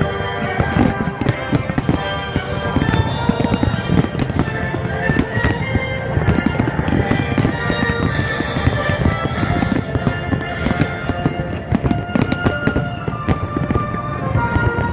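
A fireworks display: a rapid, continuous barrage of bangs and crackles over music with sustained notes.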